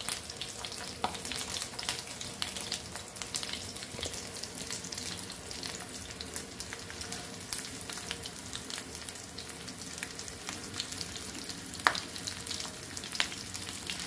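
Stuffed snake gourd pieces shallow-frying in oil in a nonstick pan: a steady sizzle with many small crackles and pops, and one sharper click near the end.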